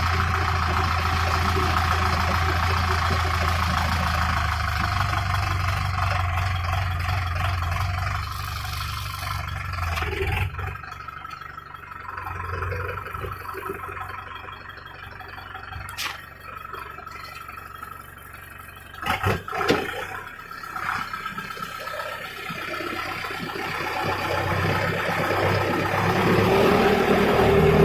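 Farm machinery engine running steadily, dropping away after about ten seconds. A few knocks come around the twenty-second mark, then the engine builds up again near the end.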